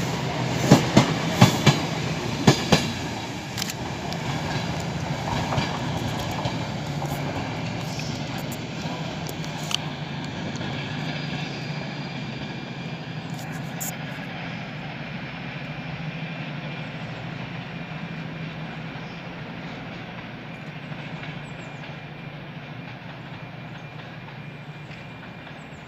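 Diesel passenger train passing close, its wheels clicking sharply over rail joints for the first few seconds, then a steady low rumble that slowly fades as the train draws away.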